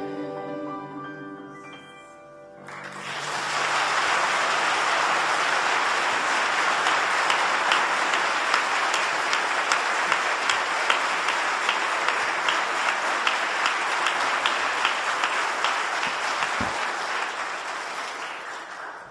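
A choir's last held chord dies away in the first two seconds, then applause starts up and carries on steadily, thinning out and fading near the end.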